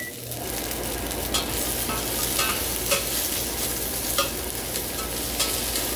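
A kitchen fan switching on and running with a steady hum, over chopped aromatics and chilies sizzling as they char in a stainless saucepan. A utensil knocks against the pan about five times as they are stirred.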